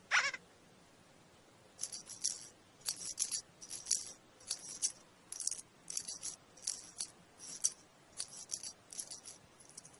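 A quick falling swish, then, from about two seconds in, a soft shaker rattling in short, slightly uneven strokes, roughly two a second.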